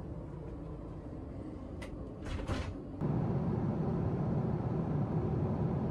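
Steady airliner cabin noise of a Boeing 767-400 in cruise, first muffled inside the lavatory with a few clacks of the lavatory door and latch about two seconds in. About three seconds in it cuts to the louder, steady rush of the cabin by a window seat.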